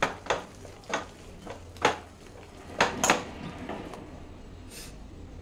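Hand mixing thick vada batter in a stainless steel bowl: irregular wet slaps of the batter and knocks against the steel, about six sharp ones in the first three seconds, then softer squishing.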